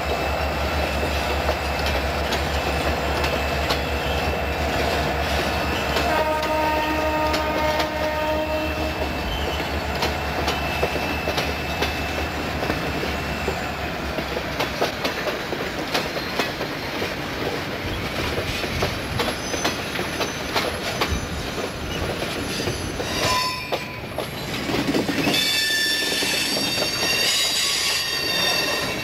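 Freight train rolling past with steady rumble and clatter of wheels. About six seconds in, a horn chord sounds for a couple of seconds. Near the end, wheels squeal in several high ringing tones.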